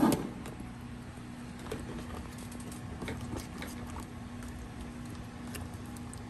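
Soft wet squelching and light scattered ticks of a bare hand mixing catfish pieces and vegetables in a thick spice marinade in an aluminium foil tray, over a faint steady hum.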